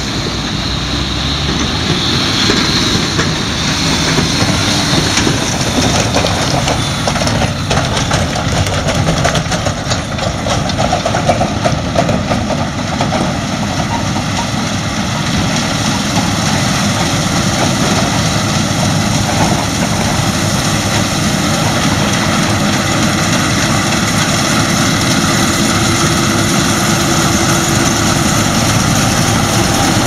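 Claas Lexion combine harvester running while it cuts wheat, a steady engine and machinery drone that grows slightly louder as the machine comes closer.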